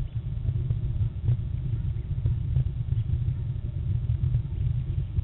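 Low, unevenly fluttering rumble of wind buffeting an outdoor nest-camera microphone, with a few faint clicks.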